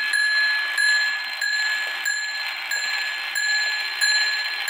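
Antique German shield (wag-on-the-wall) clock movement striking on its bell: the hammer hits the bell about every two-thirds of a second, and each blow rings on into the next. The strike was set off by moving the hands, which do not yet line up with the strike on the hour.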